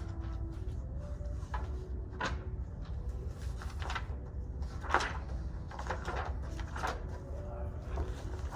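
Steady low room hum with scattered short rustles and soft knocks of books and papers being handled at a table, the loudest knock about five seconds in.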